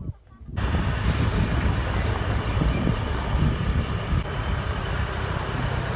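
Steady rumble and rush of a vehicle moving along a road, likely with wind on the microphone, cutting in abruptly just under a second in.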